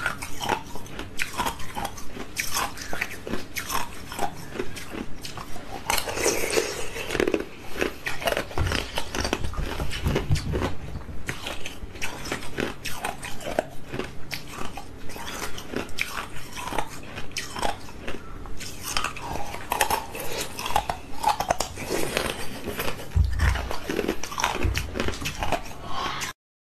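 Ice being bitten and chewed close to the microphone: a continuous run of irregular crunches and crackling snaps.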